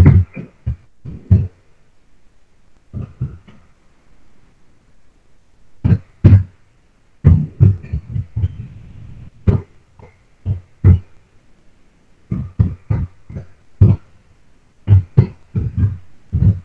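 Computer keyboard being typed on: irregular sharp key strikes in short runs separated by pauses of a second or two.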